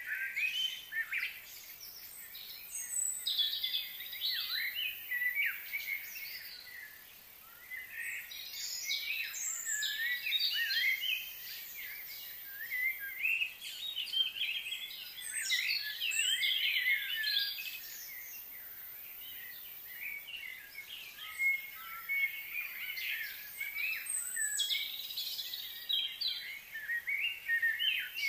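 Several small songbirds chirping and singing in quick, overlapping phrases, with two short lulls.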